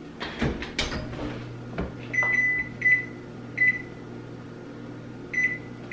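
The oven door of an electric range shuts with a few clicks and knocks, and a low steady hum comes on. Then the oven's touch control panel gives about five short, high beeps as it is set to bake.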